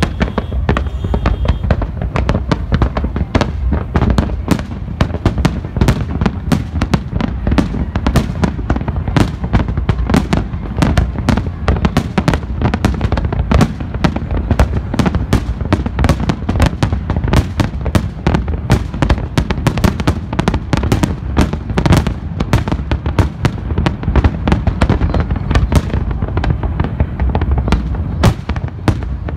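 Fireworks display: a continuous barrage of bangs and crackles, several a second, over a steady low rumble.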